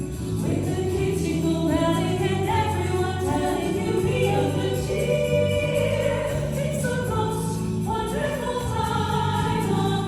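A choir singing, with sustained held notes.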